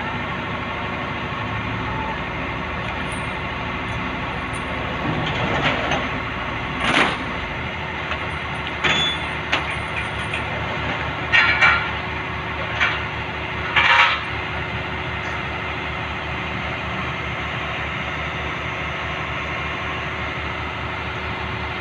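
Heavy equipment diesel engine idling steadily, with a series of sharp metal clanks and knocks from about five to fourteen seconds in as the steel loading ramps of a self-loader truck are handled under a mini excavator.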